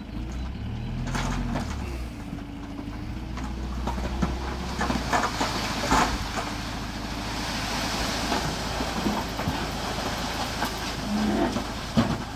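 Small tipper truck's engine running while its hydraulic tipper raises the bed, then a load of soil sliding and pouring off the bed in a rushing spill with scattered knocks, starting about five seconds in.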